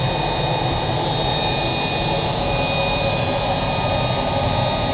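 Aero L-39 Albatros's single Ivchenko AI-25TL turbofan running steadily with a constant high whine, heard from inside the cockpit as the jet rolls out along the runway after landing.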